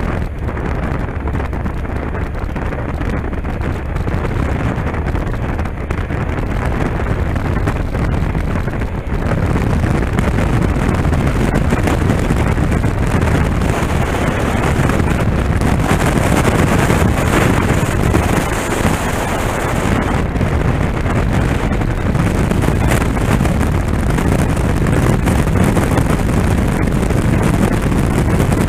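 Wind rushing over a helmet-mounted camera microphone on a moving motorcycle, mixed with engine and road noise. It grows louder about a third of the way in.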